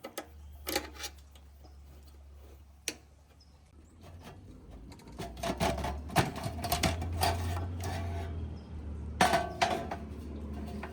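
Clattering of hard objects being handled: scattered clicks and knocks, busiest in the second half with two louder clusters, over a low steady hum.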